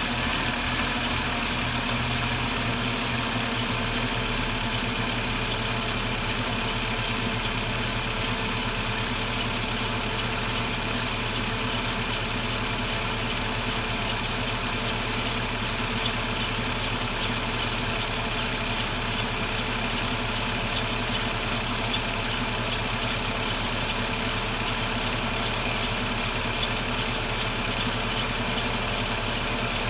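BMW 530i engine idling steadily with a high-pitched squeak repeating in a quick, even rhythm, a couple of times a second.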